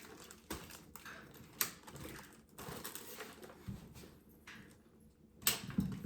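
Scattered light clicks and handling noises, with a few sharper clicks, as a portable power station is fumbled with and switched off.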